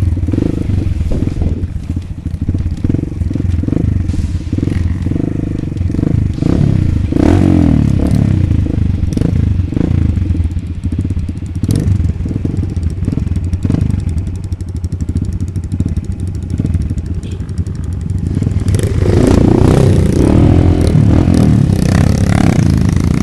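Kawasaki D-Tracker supermoto's single-cylinder engine running as the bike rides a rough dirt trail, with clattering knocks from the bike jolting over the ground. The revs rise briefly about seven seconds in and climb higher in the last few seconds.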